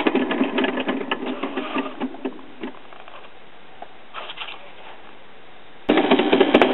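Turntable drive mechanism of a 1940s Decca DP16 record player running with a rapid mechanical clicking and rattle from its hardened, notched rubber drive wheel. The rattle thins out and fades over the first three seconds, leaving a faint steady noise. Near the end a louder noise starts abruptly.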